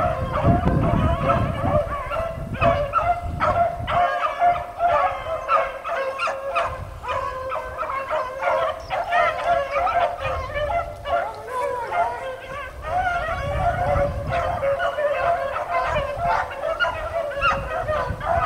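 A pack of beagles baying and bawling together, many voices overlapping without a break: hounds in full cry running a rabbit's trail, the chase circling back. Bursts of low rumble sound near the start and again about three-quarters through.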